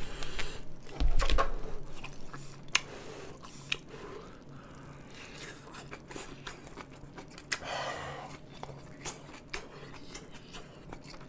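Close-up mouth sounds of chewing a hot mouthful of grilled thin-sliced beef brisket: wet smacks, bites and small crunches, with sharp mouth clicks scattered throughout.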